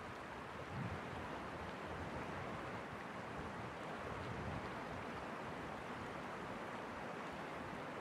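Shallow water running and rippling over stones, a steady rush, with low wind buffeting on the microphone, strongest about a second in.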